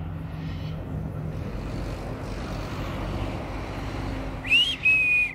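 A steady low drone of a distant engine swells and eases over a few seconds. Near the end come two loud, high whistled calls, the first rising and wavering, the second held at one pitch.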